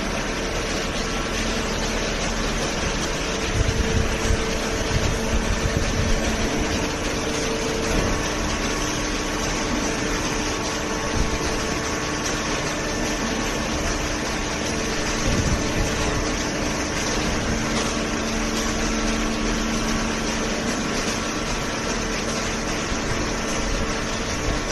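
Hydraulic baler's electric motor and hydraulic pump running steadily with a hum made of several held tones. There are a few louder knocks between about three and six seconds in, and another around fifteen seconds.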